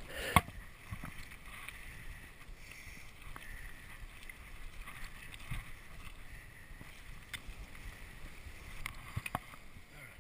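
Mountain bike rolling along a dirt singletrack: steady tyre and wind noise, with scattered clicks and rattles from the bike and a sharp knock about half a second in.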